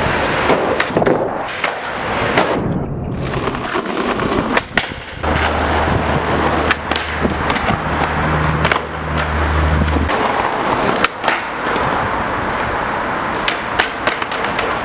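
Skateboard wheels rolling on pavement, with repeated sharp clacks and knocks as the deck and wheels strike the ground and a concrete ledge.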